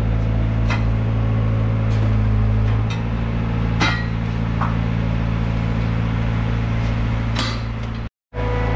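Steady low mechanical hum, like an engine or generator running, with a few sharp knocks and clinks on top.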